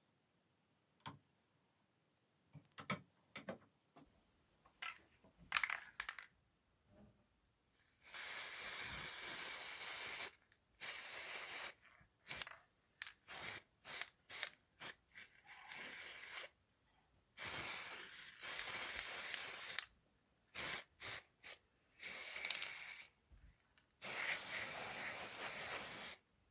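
Aerosol spray-paint can hissing in repeated bursts as it coats a hatchet head: several long sprays of about two seconds and many short quick puffs, with a few light clicks and taps before the spraying starts.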